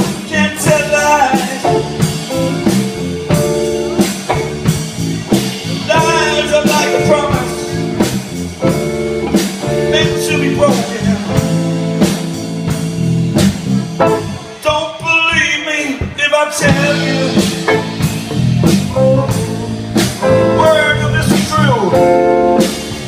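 A live band playing a blues-rock song: bending guitar or vocal melody lines over bass and a steady drum beat. The low end and the beat drop out briefly about two-thirds of the way through.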